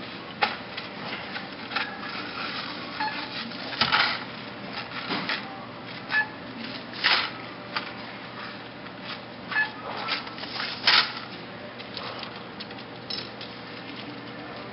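Checkout at a store counter: small hardware packages rustling, clicking and being set down as they are scanned, with a couple of short beeps.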